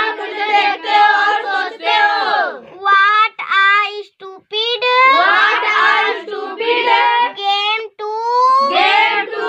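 A young girl's high-pitched voice reciting the lines in a sing-song manner, with short pauses between phrases.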